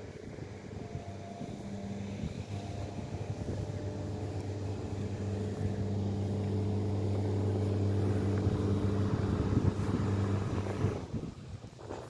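An engine running at a steady pitch, growing gradually louder, then stopping abruptly about eleven seconds in.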